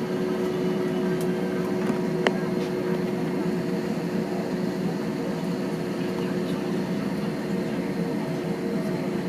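Steady drone inside an Airbus A320 cabin: a low, even rumble with a few steady hum tones over it. A single short click comes about two seconds in.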